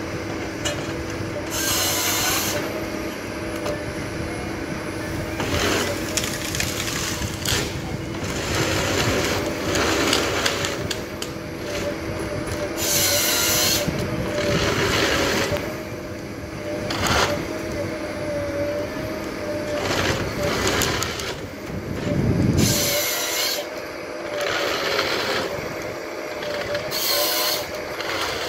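Komatsu forest harvester working: the diesel engine and hydraulics run steadily with a held whine. The harvester head's chain saw cuts through the stem about half a dozen times, each cut lasting about a second, as the tree is bucked into logs. A heavy thump comes about two-thirds of the way in.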